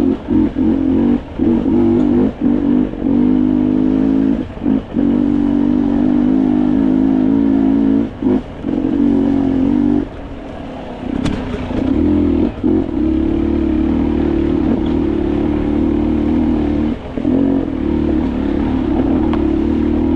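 Off-road dirt bike engine running under throttle at a steady pitch, with the throttle briefly shut off again and again and a longer easing-off lasting about two seconds near the middle.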